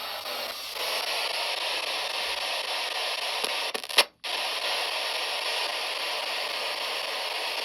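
Spirit box scanning through radio frequencies, giving a steady hiss of radio static. About four seconds in there is a sharp click and the static cuts out for a moment before it comes back.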